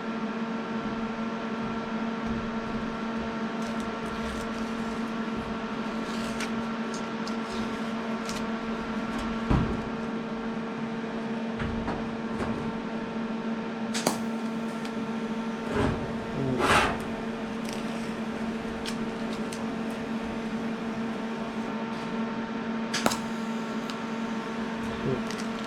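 TIG welding machine humming steadily, a mains-type electrical hum with a few short knocks and clicks from handling the stainless exhaust parts and torch.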